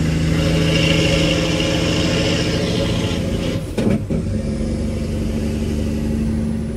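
Semi truck's diesel engine pulling steadily. About four seconds in the note breaks off briefly with a dip in level, then picks up again at a different pitch, as in a gear change.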